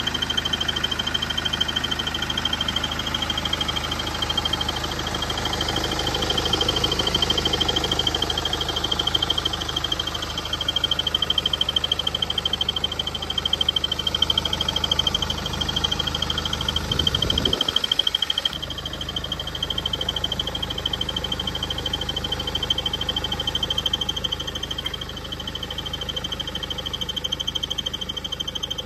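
BMW N47D20 four-cylinder diesel idling with a continuous high-pitched, rapidly pulsing squeak from the accessory belt drive, the squeak that grows louder with the air-con compressor running. The uploader traced its cause to a failing crankshaft pulley (harmonic balancer), though the squeak itself does not come from that pulley. About two-thirds through, a low falling sweep is heard as the low engine sound briefly drops.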